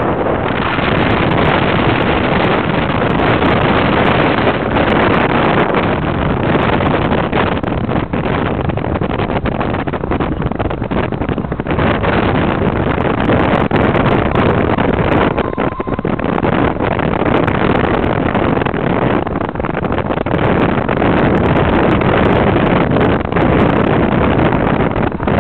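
Loud wind rushing and buffeting the microphone from a moving car, mixed with road and engine noise.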